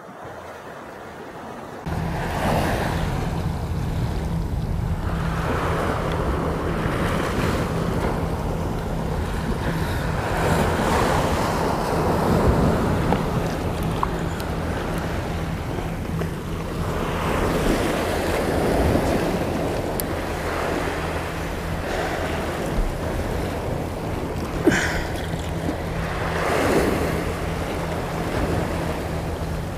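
Sea waves surging and washing against shore rocks every few seconds, with wind rumbling on the microphone; it comes in about two seconds in, after a quieter start. A single short click near the end.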